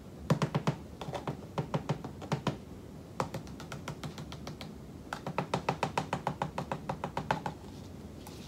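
Rapid light tapping and clicking from a clear plastic cup being handled, about eight to ten taps a second, in three runs of one to two seconds each with short pauses between.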